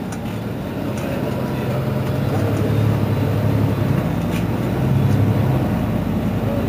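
Mercedes-Benz Citaro C2 city bus engine running with a low steady drone that grows louder about a second in, stays strong, and eases briefly near the end.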